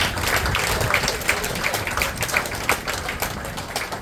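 Scattered hand clapping from a small crowd, thinning and dying away.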